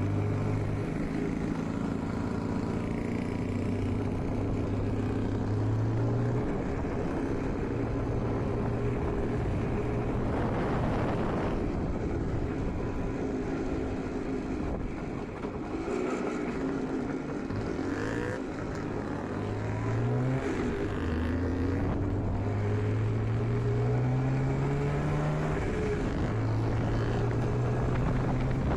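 IZh Jupiter 5's two-stroke twin-cylinder engine running under way. Its pitch rises as it accelerates and falls back at each gear change, several times over.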